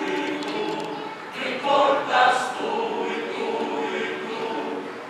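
Mixed-voice choir singing in harmony, sustained notes moving together, swelling louder about two seconds in.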